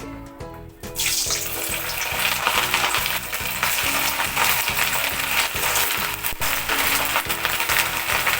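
Bhagar (barnyard millet) vadas deep-frying in hot oil in a kadhai: a loud, steady sizzling that starts suddenly about a second in, as a fresh batch goes into the oil.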